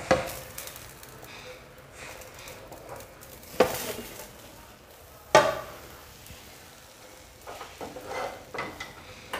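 A non-stick frying pan and a plate clattering as a cooked omelette is turned out of the pan onto the plate. There is a sharp knock at the start, two ringing metal clanks around the middle, then lighter clinks and scrapes near the end.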